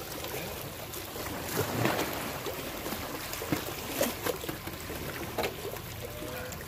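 Scattered sharp clicks and knocks of a radio-controlled scale crawler's tyres and chassis on granite rock, over a steady wash of noise that resembles lapping water.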